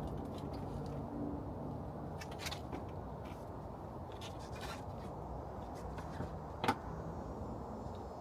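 Light scrapes and clicks of plastic bumper trim being handled and pushed into place, with one sharp click about six and a half seconds in, over a steady low background rumble.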